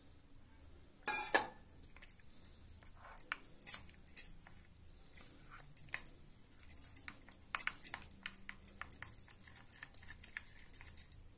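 Steel spoon stirring a thick flour-and-water batter in a glass bowl, clinking and scraping against the glass in irregular quick ticks that come thicker in the second half. A short louder burst of sound comes about a second in.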